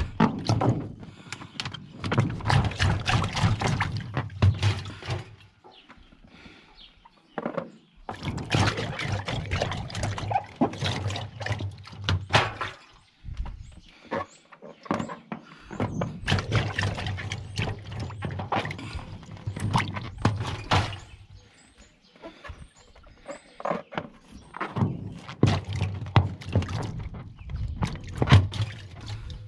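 Washing machine drum turning in spells of about four to five seconds with short pauses between, the cubes inside clattering and knocking against the drum as they tumble with the balloons.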